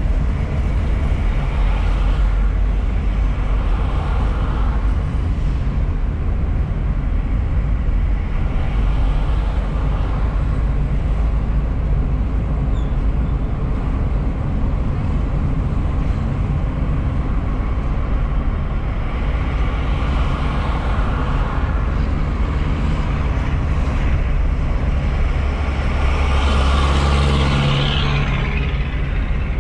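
Car driving along a city road, heard from inside the cabin: a steady low rumble of engine and tyres. It grows louder for a couple of seconds near the end as traffic noise swells.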